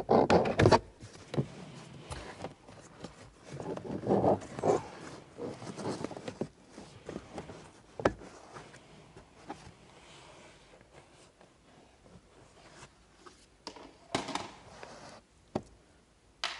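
Plastic passenger footwell hush panel being worked loose and pulled out from under the dash: irregular rubbing and scraping of plastic, with scattered clicks and a sharp knock about eight seconds in.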